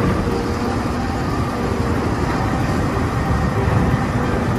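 Toy rocket-launcher truck running: a steady, noisy mechanical whirr and rattle with a low rumble.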